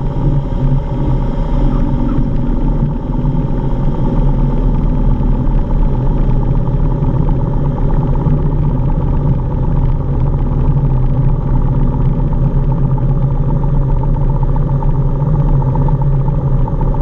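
A single-engine propeller airplane's engine and propeller running in a steady, unbroken drone, heard from inside the cockpit as the plane rolls along the runway after landing.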